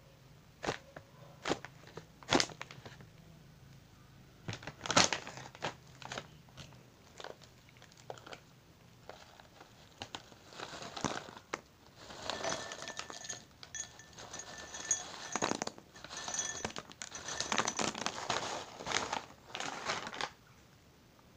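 A plastic snack bag crinkling and tearing open with a few sharp cracks. From about halfway through, crunchy cheese sticks pour from the bag into a drinking glass with a dense rattling crackle that stops near the end.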